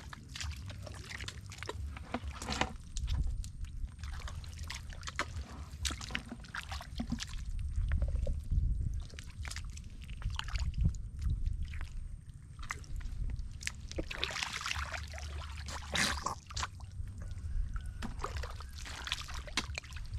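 Wet mud and shallow water squelching and sloshing in irregular bursts, over a steady low rumble.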